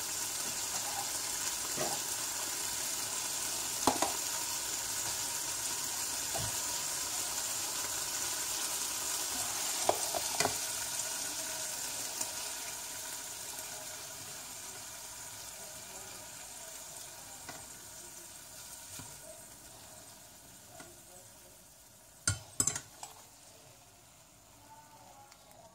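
Longanisa sausages sizzling in hot oil in a nonstick frying pan, with a few light knocks of a utensil against the pan. The sizzle gradually dies down over the second half, and near the end come a few sharp clinks.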